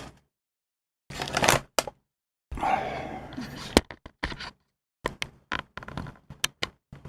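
Small metal clicks, taps and a short scraping rattle from a small Ilco mortise lock cylinder being taken apart by hand, with stretches of dead silence between them.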